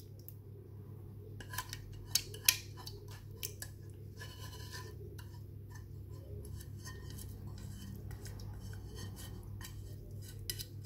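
Wire whisk scraping and clinking against the inside of a metal saucepan as thick quiche filling is scraped out: a run of light clicks and taps, loudest about two seconds in, over a steady low hum.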